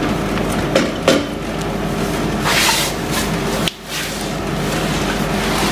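A few sharp knocks and a short scrape of hands working the gearbox loose from a BMW K1200S, over a steady hum. A brief muffled drop about two-thirds through as a hand passes right by the microphone.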